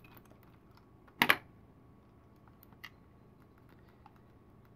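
Faint clicks of a small screwdriver backing a screw out of a plastic holocron shell, with one sharp double clack about a second in.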